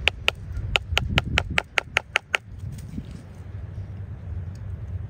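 Mallet tapping the end of a wooden-handled carving chisel into a small block of wood: about a dozen sharp, quick knocks, a few a second, stopping about two and a half seconds in.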